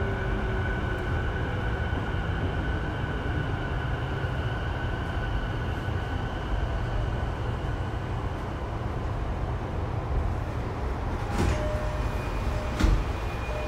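Sotetsu 12000 series electric train heard from inside a car, running over the rails with a steady rumble while its motor tones slowly fall in pitch as it slows for a station. Two sharp knocks come near the end.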